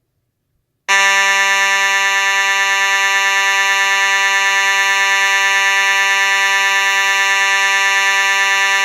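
Federal Signal H-45024T4R alarm horn sounding a loud, continuous buzzing tone that starts abruptly about a second in and holds steady, with no on-off pattern.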